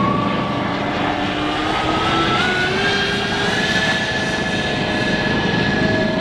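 The three electric ducted fans of a scale UPS DC-10 model jet whining in flight over a steady rush of air. The whine steps up in pitch over the first few seconds, then holds steady.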